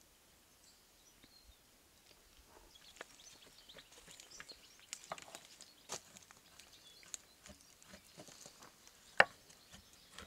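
Knife shaving a block of ceremonial cacao on a wooden board: quiet, irregular scrapes and light taps that begin about three seconds in, with one sharp knock of the blade on the wood about nine seconds in.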